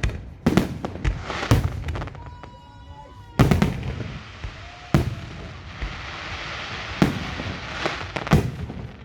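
Fireworks display: a series of sharp booms from shells bursting, about six in all, the loudest a little past a third of the way in, with a crackling hiss between them and a brief whistling tone shortly before the loudest boom.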